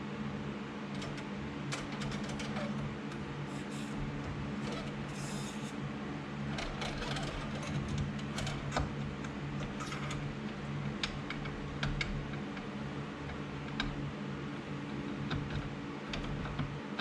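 Scattered clicks and clinks of tools and dirt bike suspension parts being handled, over a steady low hum.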